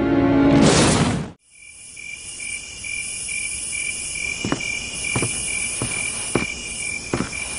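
A music swell cuts off abruptly about a second in, followed by crickets chirping steadily in a night-time ambience. Five soft knocks come a little over half a second apart in the second half.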